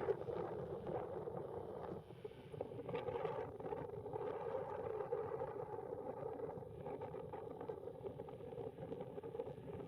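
Airbus A320 jet engines after takeoff: a steady rumble with no distinct events.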